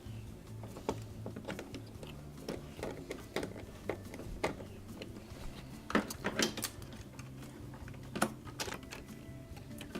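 Irregular clicks and taps of a nut driver on screws and of plastic dishwasher control-panel parts being handled during reassembly, with a few sharper knocks about six and eight seconds in.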